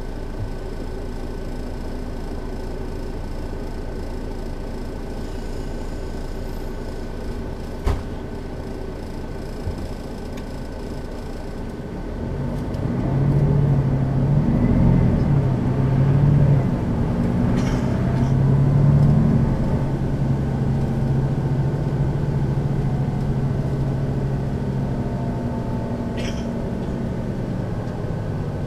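Setra S 415 NF city bus's diesel engine idling with a steady low rumble, then from about twelve seconds in it pulls away under load, the engine note rising and dropping several times as the ZF gearbox shifts up, before settling into a steadier run.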